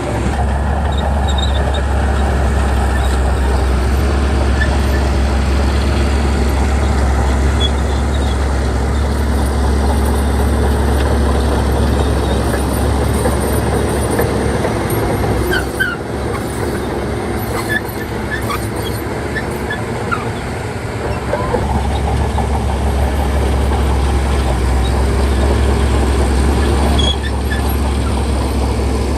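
Heavy diesel engine of earthmoving machinery running steadily with a deep drone. The drone drops away for about five seconds in the middle, then comes back.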